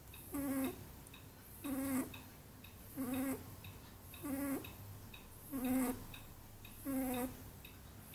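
A sleeping Netherland Dwarf rabbit snoring: six short, pitched snores, one with each breath, coming evenly about every 1.3 seconds.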